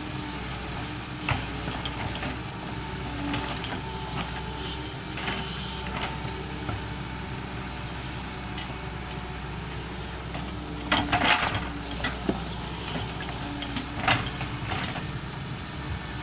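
Doosan 140 wheeled excavator's diesel engine running steadily as it digs, with several knocks and scrapes over it, the loudest a cluster about eleven seconds in and another about fourteen seconds in.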